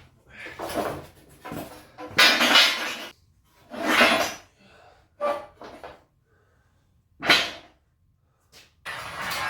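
A run of short, noisy scrapes and clatters, about eight in all, the loudest about two seconds in, like stiff material being handled and knocked about in a workshop.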